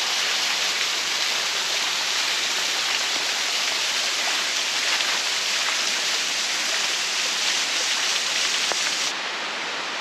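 Steady, loud rush of falling water, an even hiss with no other sound standing out, dropping slightly in level about nine seconds in.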